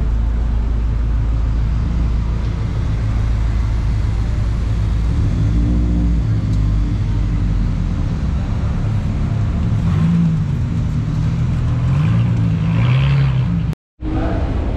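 Car engine and road noise, a steady low rumble, with a wavering pitch late on. The sound cuts out for a moment near the end.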